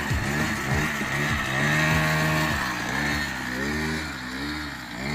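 Small 50cc engine of an Eaton Viper kids' ATV being ridden, its pitch rising and falling again and again as the throttle is opened and eased off.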